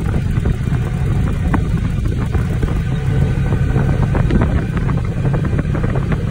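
Wind rushing over the microphone of a moving vehicle, a loud steady low rumble, with road noise underneath.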